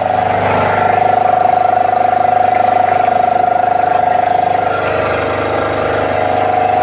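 High-pressure breathing-air compressor running steadily under load, filling scuba cylinders toward 300 bar: a loud, even mechanical drone with a strong hum and a fast, fine pulsing.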